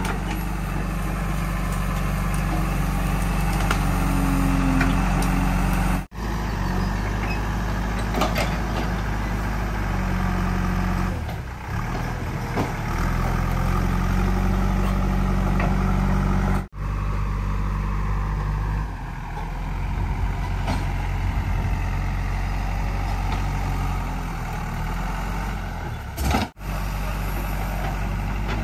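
Diesel engine of a JCB 3DX backhoe loader (Kirloskar engine) running steadily while the machine works its hydraulic arm and loader bucket. The engine note shifts up and down as the load changes. The sound breaks off briefly three times.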